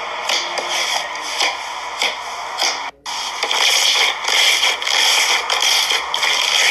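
Slime being squeezed and worked by hand: a dense crackling, sticky noise with many small clicks, breaking off briefly about three seconds in and coming back a little louder.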